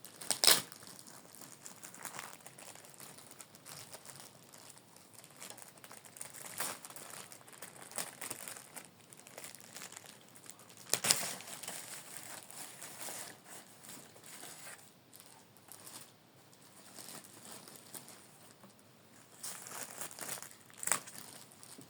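Plastic packaging and model-airplane parts being handled: crinkling and rustling, broken by a few sharp clicks or snaps. The loudest clicks come about half a second in, around the middle, and near the end.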